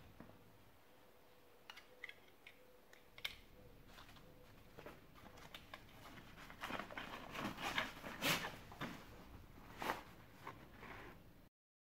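Faint clicks from handling a plastic deshedding brush, then the rustling and crinkling of a fabric drawstring storage bag as the brush is slid into it.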